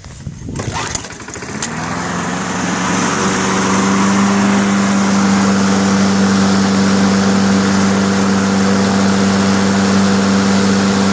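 Lawn mower engine starting while fed only on gasoline vapor drawn from the tank, with its carburetor fuel line disconnected. It picks up speed over the first few seconds, then settles into steady running.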